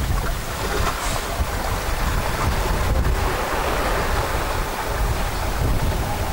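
Wind buffeting the microphone with a steady gusty rumble, over the wash of shallow surf around the lifeboat.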